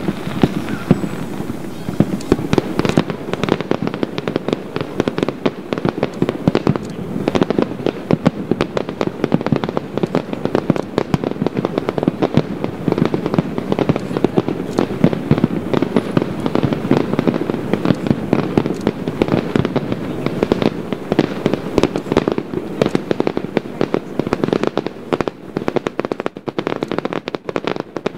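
Fireworks shells bursting in a dense, rapid barrage: many sharp bangs and crackles close together over a steady low rumble, thinning slightly near the end.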